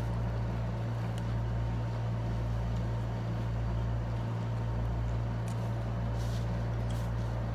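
Steady hum of a window air conditioner running, with a low drone and a faint higher tone held constant throughout, and a few faint ticks in the second half.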